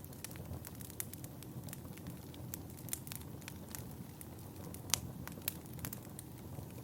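Wood fire burning, with irregular crackles and sharp pops over a low steady rumble; the loudest pop comes about five seconds in.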